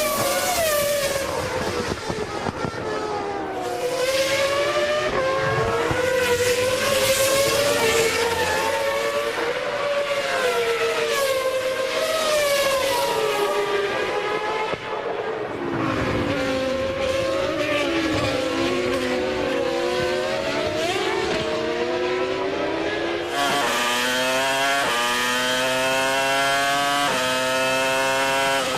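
Formula One V10 engines at racing speed, their pitch wavering up and down as the throttle is worked on a wet track. Near the end, a car accelerates hard through a quick run of upshifts, the pitch climbing and dropping back in steps.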